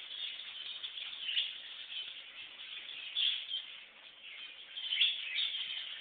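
A flock of small aviary birds chirping and chattering at once, many short overlapping calls, with louder flurries about a second and a half in, around three seconds, and near the end.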